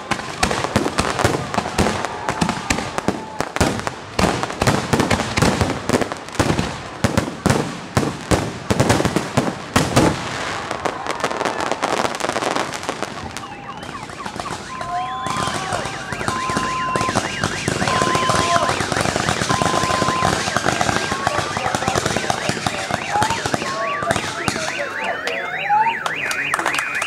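Fireworks going off in a rapid salvo of bangs and crackles for about ten seconds, then a steady hissing burn. Through the hiss comes a repeating short beeping tone, and several rising whistles sound near the end.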